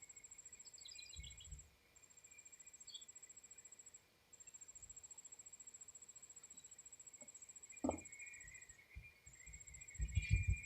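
Faint, high, fast-pulsed trilling of an outdoor insect, steady apart from three brief pauses. Low dull thuds near the end.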